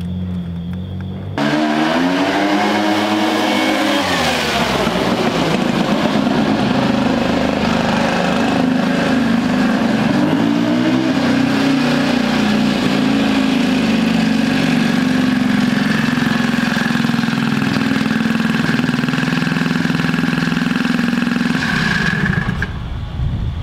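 Turbocharged rotary engine in an ATV, idling briefly, then revved hard about a second in and held at high, steady revs under way. It eases off near the end. The engine is running on a slightly richer pilot jet during carb tuning.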